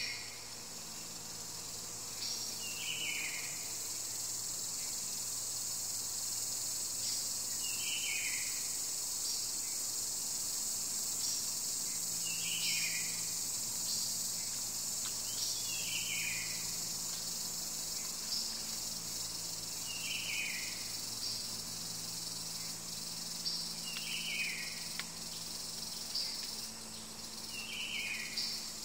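Steady high-pitched insect chorus, with a bird call falling in pitch that repeats about every four seconds and a short higher chirp about every two seconds.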